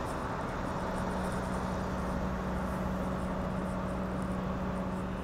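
Steady low hum of vehicle engines running on the street, holding one even pitch with no siren sounding.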